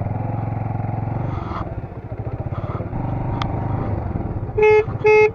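Bajaj Avenger 220 motorcycle's single-cylinder engine running steadily under way. Near the end, two short horn beeps sound half a second apart and are the loudest thing.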